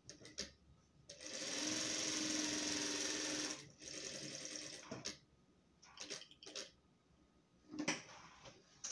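Sun Special industrial straight-stitch sewing machine stitching through layers of fabric along the edge of a rug in spurts: a run of about two and a half seconds starting a second in, a shorter quieter run straight after, then a few brief bursts with pauses between.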